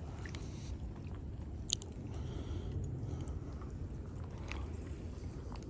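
Fishing reel being cranked to bring in a lure snagged in grass, with a few faint clicks over a low, steady rumble.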